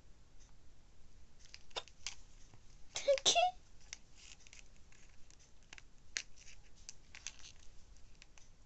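Light metallic clicks and scrapes of a small key being worked in the lock of a locked notebook that will not open. About three seconds in comes a louder burst of clicking with a brief vocal sound.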